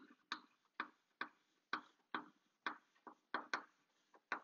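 Chalk writing on a blackboard: a faint string of short, sharp taps, about two a second, as each stroke of a word is put down.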